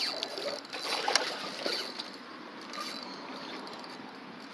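Water splashing and rippling in a shallow pond, with a few light knocks in the first two seconds.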